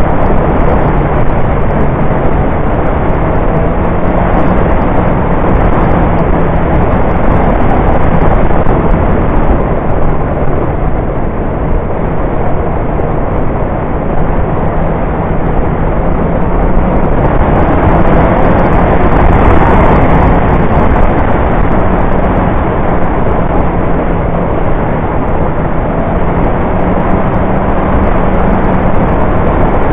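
Motorcycle riding downhill at steady speed: heavy wind rush over the camera's microphone, with the engine's low hum running underneath. The rush swells briefly about two-thirds of the way through.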